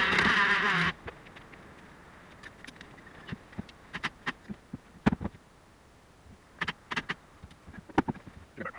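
A loud rushing noise that cuts off abruptly about a second in, then scattered light knocks and clicks from work on the backhoe's swing cylinder as it is taken out and hung on the hook.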